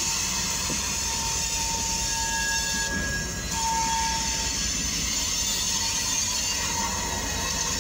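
A pair of diesel locomotives passing slowly over a road crossing, a steady low engine and wheel rumble. A thin high squeal comes and goes through the first half.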